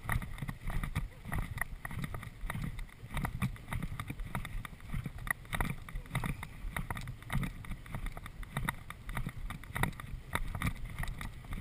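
A horse cantering across grass, its hoofbeats and the rattle of its tack coming as a rhythmic run of thumps and knocks, with wind on the microphone.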